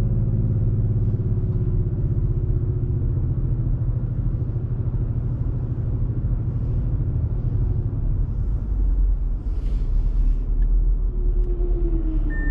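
Audi RS4 Avant's engine running at low revs as the car rolls at walking pace, a steady low hum whose pitch eases slightly downward.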